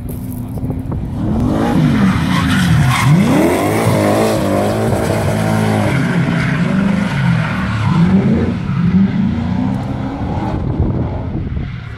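BMW 540 drifting: its engine revs hard, the pitch swinging up and down as the throttle is worked, while the rear tyres squeal and skid. It grows louder about a second in and eases off near the end as the car moves away.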